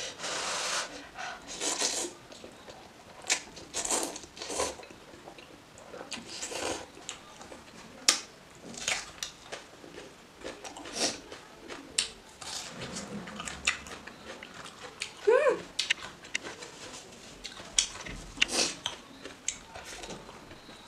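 Close-miked eating: spicy soup noodles slurped and chewed, with crisp crunchy bites of raw onion, many short wet mouth sounds throughout. A brief hum-like voiced sound comes about fifteen seconds in.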